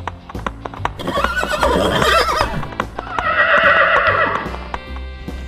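Horse whinnying, starting about a second in, with a long quavering trill in its second half.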